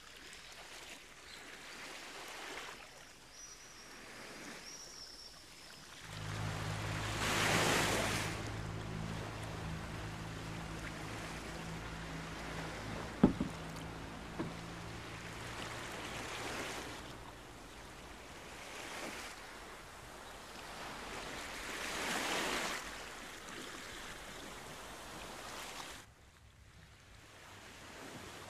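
Sea waves breaking and washing up a beach, swelling loud every few seconds. A low steady hum runs underneath for about ten seconds, and there is one sharp knock midway.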